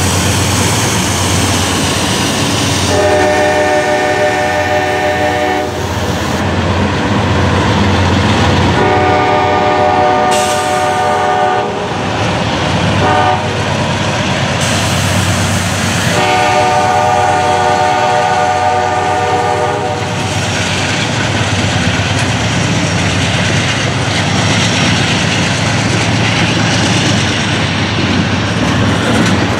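Diesel freight locomotive's horn sounding the grade-crossing signal, long, long, short, long, over the rumble of the passing locomotives' engines. After the horn, the tank cars roll by with a steady clickety-clack of wheels over rail joints.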